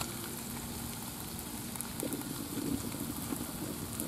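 Steak, onions and peppers sizzling on a flat-top propane griddle, a steady hiss.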